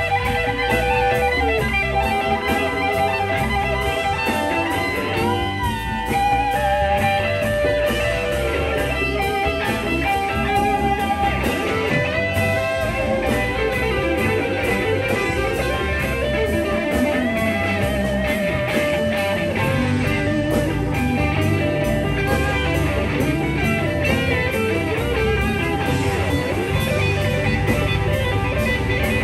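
Live blues-rock band playing an instrumental passage: an electric guitar leads with bent, wavering notes over the rest of the band.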